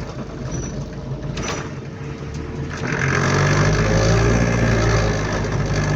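Bus engine running with a rattly, shaky sound heard from inside the cabin, growing louder about three seconds in.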